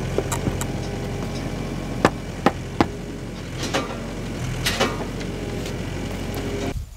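Sharp clicks and knocks of barn-door hardware being worked by hand, three of them about two to three seconds in, over a steady low motor hum.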